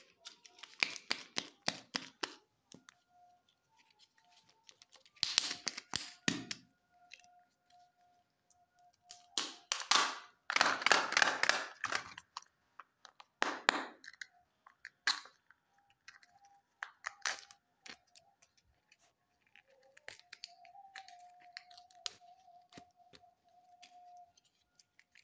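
Plastic surprise-egg packages being handled and torn open: several bursts of crinkling and tearing wrapper, with sharp clicks of the plastic shells. The loudest burst comes about ten to twelve seconds in.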